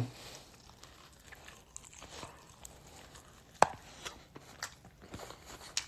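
A person chewing a mouthful of chicken wing: faint chewing with scattered small mouth clicks, and one sharper click about three and a half seconds in.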